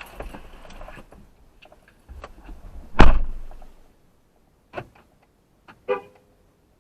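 A door slams shut once, sharply and loudly, about three seconds in, followed by a couple of lighter clicks.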